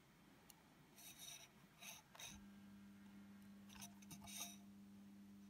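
Near silence, with a few faint scratchy handling rustles and a low steady hum that starts a little over two seconds in.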